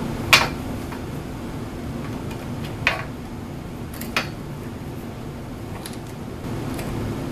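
Three sharp metallic clinks as a screwdriver and metal parts knock against the ball screw and its nut bracket during assembly, over a steady low hum.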